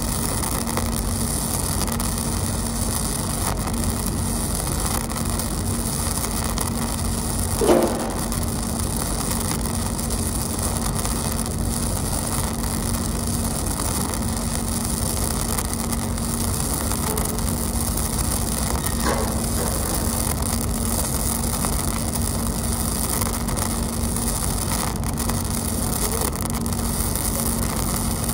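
Gasless flux-cored arc welding on a steel beam: the arc's steady frying crackle, with a steady low hum beneath it. A brief louder pop about eight seconds in.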